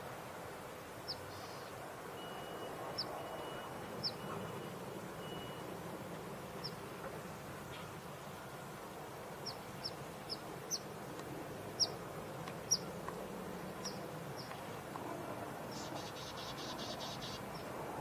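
Small birds' chip notes: about a dozen short, high chirps scattered through, several in quick succession around the middle, with a brief rapid rattling call near the end, over a steady low background noise.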